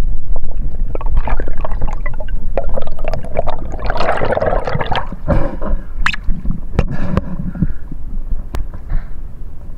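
Water gurgling and rushing against an underwater action camera's housing, with scattered clicks throughout and a louder bubbling rush about four seconds in.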